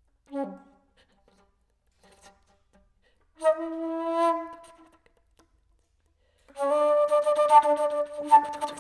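Solo flute playing contemporary music in separate phrases. A short low note comes just after the start, a single held note sounds about three and a half seconds in for about a second, and from about six and a half seconds a louder sustained tone runs with noisy rapid clicks through it. There are silences between the phrases.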